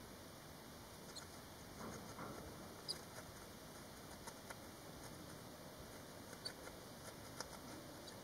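Faint, scattered, short high peeps and small ticks from barn swallow nestlings in the nest, a few days old, over a steady hiss, with a soft rustle about two seconds in.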